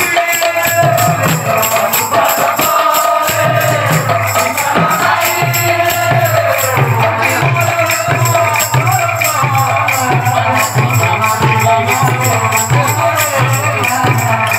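Kirtan music: hand-played mridanga barrel drums keep a steady beat under continuous clashing of large brass hand cymbals, with a wavering melody line above.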